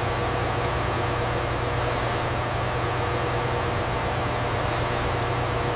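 Steady factory machinery hum with a constant broad noise, starting abruptly; two short high hisses come about two seconds and five seconds in.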